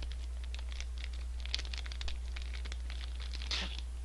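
Plastic ice-cream bar wrapper crinkling and tearing as it is pulled open by hand: a run of small crackles with a louder one about three and a half seconds in. A steady low hum runs underneath.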